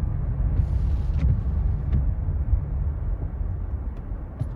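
Low, steady rumble of a car driving slowly, heard from inside the cabin, with a few faint clicks.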